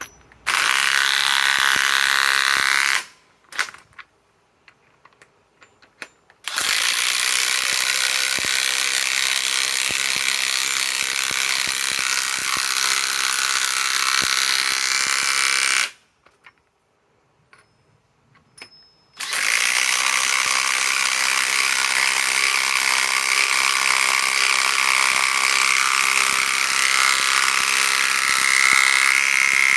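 RIDGID R8721 half-inch right-angle impact wrench hammering 4-inch lag screws in with a 15/16 socket. It runs three times: a short run of a couple of seconds, then two long runs of about ten seconds each, with brief pauses between.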